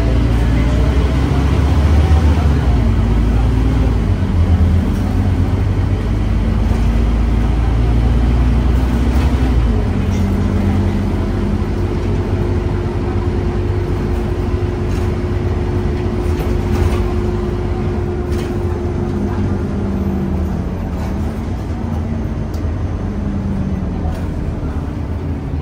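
Scania OmniCity bus under way, heard from a seat inside: the engine drone rises and falls in pitch as the bus pulls and changes gear. It has a heavy low rumble for the first ten seconds, then a steady higher hum holding for several seconds.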